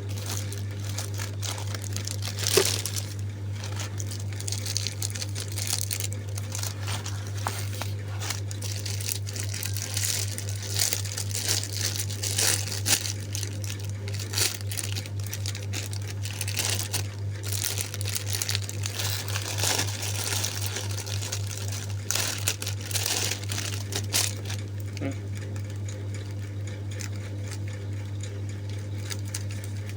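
Plastic packaging crinkling and rustling in irregular bursts as items are handled and unwrapped, over a steady low hum.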